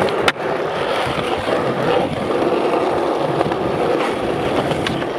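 A skateboard clacks once about a third of a second in, coming off a ledge, then its wheels roll steadily over rough, worn concrete.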